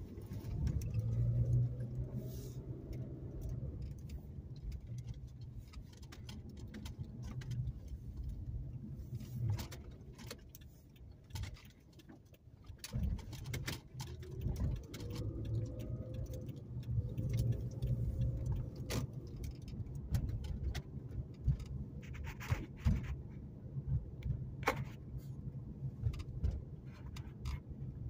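A car's engine and road noise heard from inside the cabin while driving, with the engine note rising as the car picks up speed near the start and again midway. Scattered light clicks and rattles, like jangling keys, run throughout.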